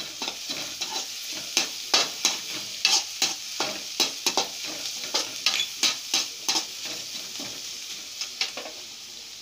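Chopped onions and garlic sizzling in hot oil in a metal kadai, stirred with a perforated steel slotted spoon that scrapes and clinks against the pan about three times a second. The strokes thin out near the end while the steady sizzle goes on.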